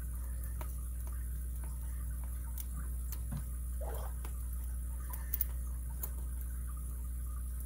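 Faint, scattered metallic ticks and clicks of a lock pick working inside a Master Lock M15 padlock, with a sharper double click about five seconds in, over a steady low hum.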